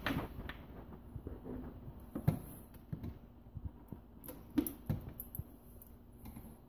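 Scattered light knocks and clicks of handling. The sharpest come about two seconds in and just before five seconds.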